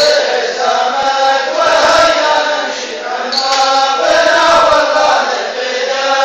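A man chanting Arabic verse in a slow melodic line without instruments, holding long notes over two phrases with a short break about halfway.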